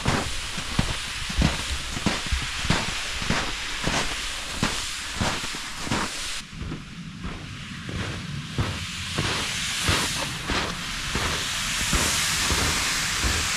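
Footsteps trudging through deep snow at a steady walking pace, over the continuous hiss of a plastic sled being dragged through the snow behind.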